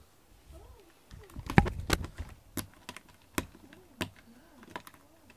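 Sharp, irregular clicks and scratches from a cat moving on a cat tree's sisal-covered base, with a busy cluster about one and a half seconds in, then single sharp clicks about once a second.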